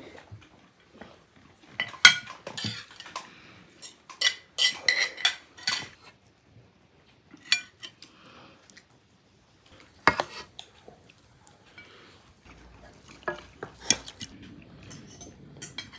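Cutlery and dishes clinking and scraping at a meal table: a wooden spatula scooping food out of a pan onto a plate, and forks knocking against plates, in scattered irregular clinks.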